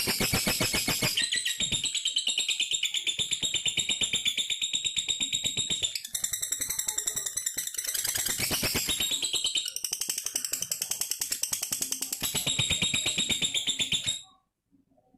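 Lovebird singing a long, unbroken, rapid high-pitched trill of fast repeated notes, the sustained 'ngegas' delivery that fanciers prize over short choppy 'batuk-batuk' bursts. It shifts pattern a few times and stops abruptly about a second before the end.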